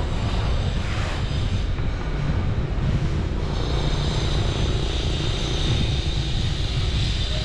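Steady low rumble of a vehicle ride along a street: engine and road noise, with a steady high hiss joining about three and a half seconds in.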